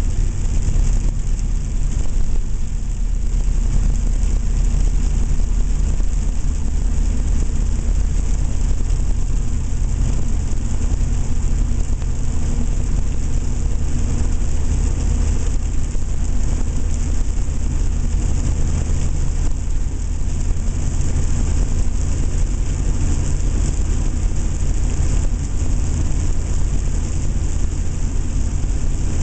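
A 7.3-litre turbo diesel engine running steadily under way, its low rumble together with the turbo's whistle, echoing in a tunnel.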